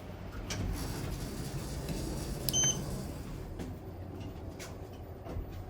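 Elevator running, with a low steady hum and rumble, some light clicks, and one short high beep about two and a half seconds in.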